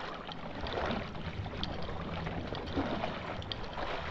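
Water sloshing and splashing in swells about once a second, over a steady low rumble.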